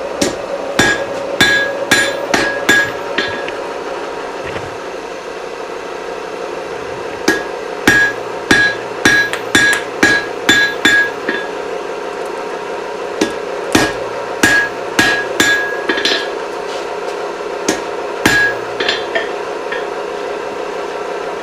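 Blacksmith's hand hammer striking hot steel on an anvil while forging a chisel, each blow ringing. The blows come in four runs of several strikes, about two a second, with pauses between the runs, over a steady hum.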